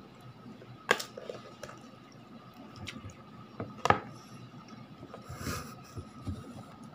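Someone eating spicy instant noodles: slurping and chewing wet noodles, with two sharp clicks about one and four seconds in and a longer slurping hiss past the middle.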